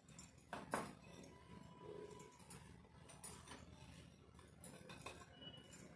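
Near silence, with a few faint clicks and taps as a glass bowl of flour is handled and tipped into a plate.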